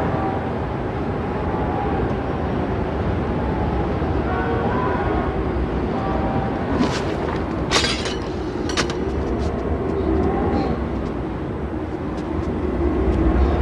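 Steady low rumble of outdoor background noise, with a few sharp clicks about seven to nine seconds in.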